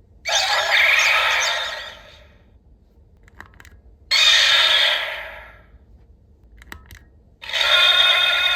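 Button clicks on a DX Ark Cube Premium toy, each followed by an electronic sound effect from its small, tinny speaker: one near the start, a second after about four seconds, and a third near the end that holds on. The first two die away within about two seconds.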